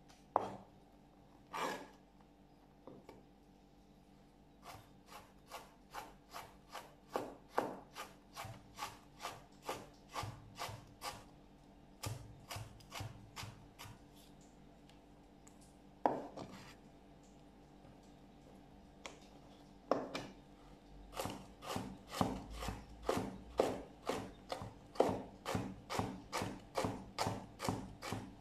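Kitchen knife chopping carrots on a cutting board: runs of steady knocks, about two to three a second, with a pause partway through and a busier run of chops near the end.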